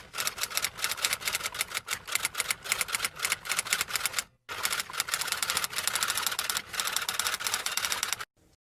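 Rapid typing: a fast, continuous run of key clicks, with a brief pause about four and a half seconds in, stopping just before the end.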